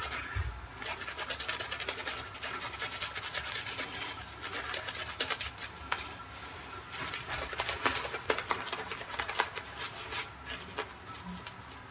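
Shaving brush lathering soap onto a stubbly, bearded face: a quick, uneven bristly scratching from rapid brush strokes.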